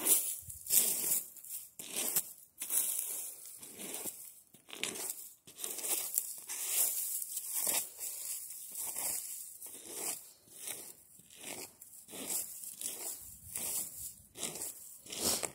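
Footsteps on dry, patchy grass and sandy ground, at a steady walking pace of about one and a half steps a second.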